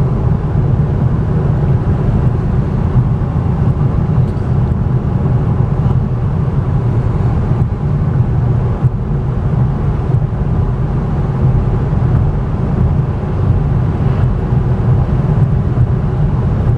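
Steady low road and tyre rumble inside the cabin of a 2014 Cadillac ELR while it is being driven.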